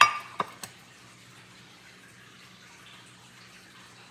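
A spoon knocking against a mixing bowl: three quick clinks within the first second, the first loudest, over a steady low hum.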